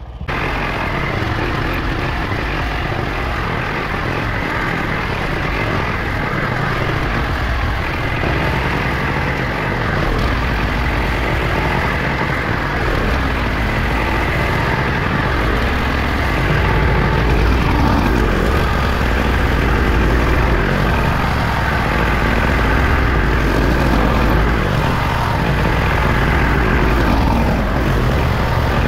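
Allis-Chalmers 712H garden tractor running under load, its rear PTO-driven tiller churning through a leaf pile. The steady engine sound grows louder about halfway through.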